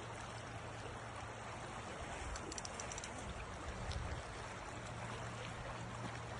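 River water flowing with a steady rush, and a few faint ticks about two and a half seconds in.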